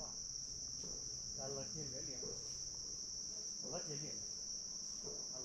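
A steady, unbroken high-pitched insect chorus drones throughout, with faint low voices murmuring a few times.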